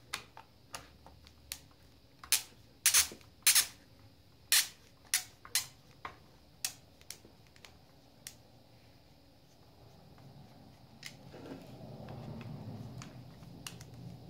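Sharp, irregular clicks and snaps of a screwdriver working the screws out of a grass trimmer's plastic throttle-handle housing, closely spaced over the first eight seconds. A low rumble rises near the end.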